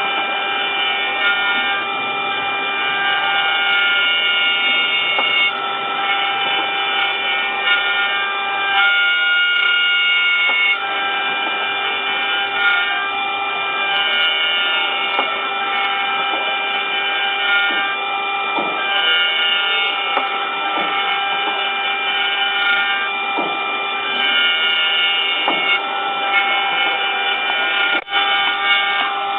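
Mini 5-axis CNC router machining an impeller: a steady spindle whine mixed with cutting noise. Higher tones come and go every few seconds as the cutter works the part.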